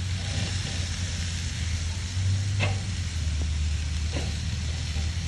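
Oxtails sizzling on a grill grate over hot charcoal, a steady hiss with a few sharp pops, over a low steady rumble.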